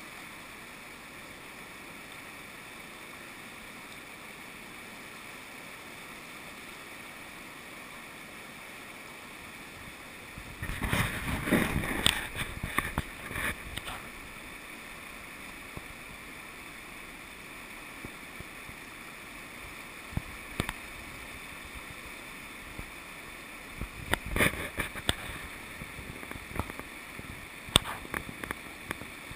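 Steady rushing of fast river rapids. About ten seconds in, a loud crackling swell lasts some three seconds, with a shorter one later and a few sharp clicks.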